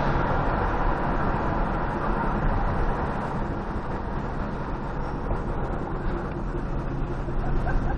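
Steady engine drone and road noise heard from inside a moving car. It eases a few seconds in and picks up slightly near the end.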